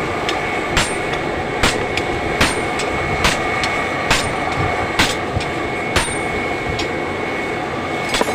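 A blacksmith's hammer striking metal, about one blow a second, some blows leaving a brief high ring, with a gap of about two seconds near the end. Under it runs a steady rushing hum with a thin whistle-like tone.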